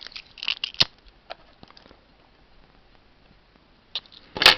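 Small cardboard firework box being handled and opened: faint scratching and a few clicks, then a short, loud cardboard rip near the end as the pack is torn open.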